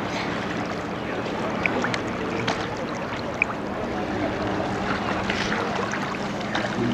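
Shallow, calm sea water splashing and sloshing around waders and a swimming child, over a steady low hum, with a couple of brief high voice-like blips.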